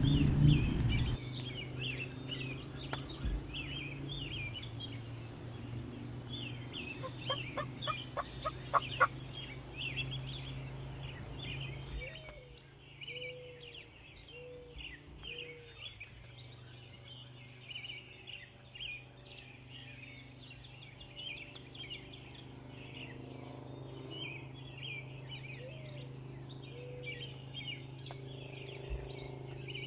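Wild turkey gobbling, one rapid rattling gobble about eight seconds in, with shorter calls later, over steady songbird chirping of a dawn chorus and a low steady hum.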